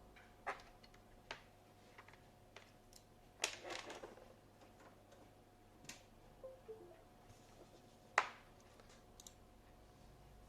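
Scattered light clicks and taps at irregular intervals, a small cluster about three and a half seconds in and the sharpest one about eight seconds in, over a faint steady electrical hum.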